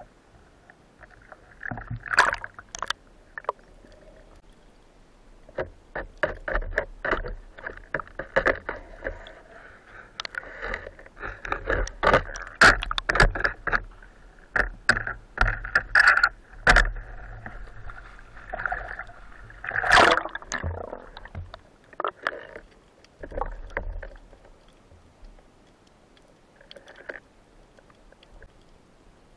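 Underwater handling noise: clusters of sharp clicks, knocks and short scrapes through a waterproof camera housing as a spearfisherman grapples with an octopus and his speargun on the rocks. The knocking thins out in the last few seconds.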